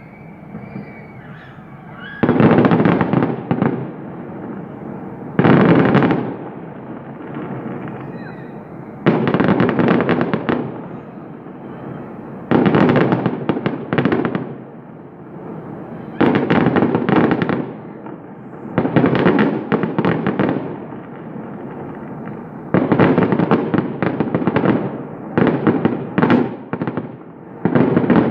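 Fireworks going off in repeated bursts of rapid crackling pops, each burst lasting a second or so and coming about every three to four seconds.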